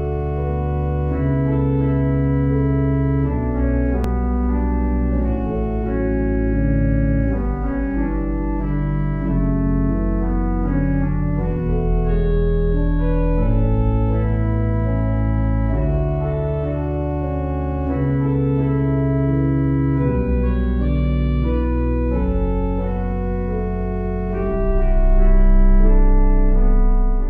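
Organ playing slow, held chords over a deep bass, changing every second or two, swelling to a louder final chord near the end that cuts off.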